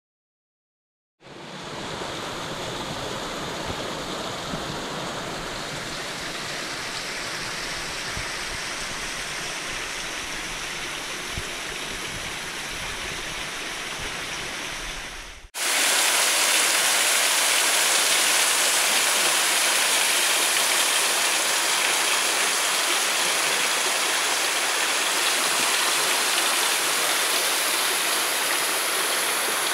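Rushing water of a mountain stream, a steady even rush that starts about a second in. About halfway through it cuts abruptly to a louder, hissier rush with less rumble beneath it.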